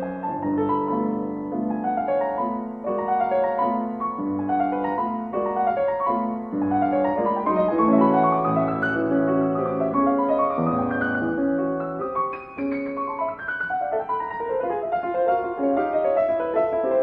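Background music: solo piano playing a flowing melody over chords.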